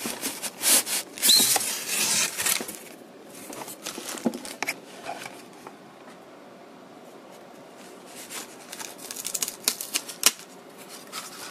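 Clear plastic wrap crinkling and packaging rustling and clicking as a boxed radio-kit case is handled and lifted from its carton and styrofoam. Dense rustling in the first three seconds, quieter in the middle, then scattered clicks and rustles with one sharp click about ten seconds in.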